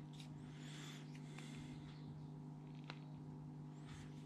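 Faint rustling of fingers pulling fishing line and a hook tight on a freshly tied drop-shot knot, with a small click about three seconds in, over a steady low hum.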